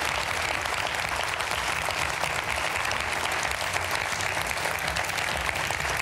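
Studio audience applauding: many hands clapping at a steady level.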